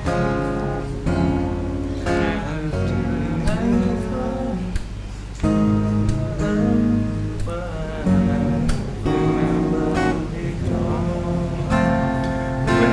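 Acoustic guitar strummed in an instrumental passage of a ballad, with chords changing every second or so.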